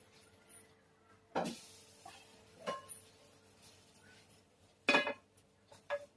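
Metal cookware being handled on a stove as one pan is taken off and another set down: four separate clanks and knocks, the loudest about a second and a half in and a ringing one about five seconds in, over a faint steady hum.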